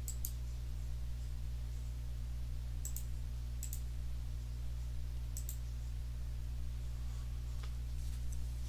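A few light, sharp computer clicks, scattered a second or more apart, as the presentation's annotations are cleared and the slide is advanced, over a steady low electrical hum.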